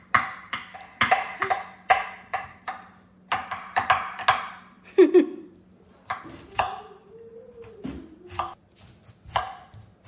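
Kitchen knife chopping vegetables on a cutting board: a quick, irregular run of strikes about three a second, thinning out to single chops in the second half.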